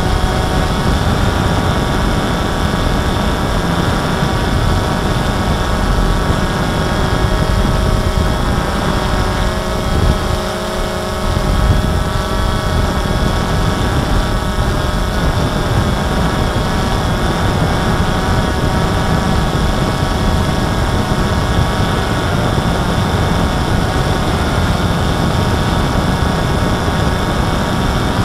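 DJI Phantom 2 quadcopter's motors and propellers whining steadily while it hovers, heard from the camera mounted on the drone, with a slight shift in pitch about ten seconds in. Wind rumbles on the microphone underneath.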